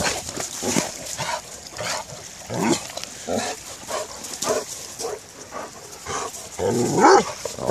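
Two dogs play-fighting, with short growling vocalisations coming about once a second and a louder one near the end.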